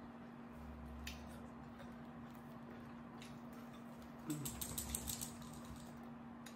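Crisp, clicky crunching of someone chewing potato chips: a couple of single crunches, then a quick run of them a little past the middle, over a faint steady hum.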